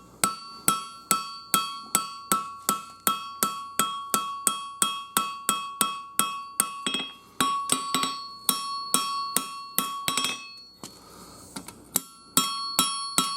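Hand hammer forging hot 5160 steel on an anvil: steady blows about three a second, each leaving a bright metallic ring from the anvil. The hammering stops for about a second and a half near the end, then picks up again.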